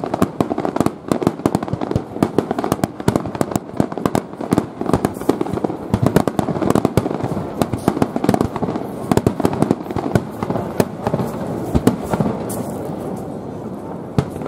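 Aerial fireworks shells bursting in a rapid, dense string of sharp bangs and pops, easing slightly near the end.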